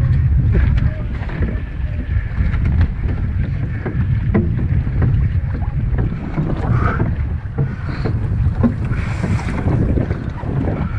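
Strong wind buffeting the microphone as a steady low rumble, with water splashing around a small boat and scattered sharp knocks.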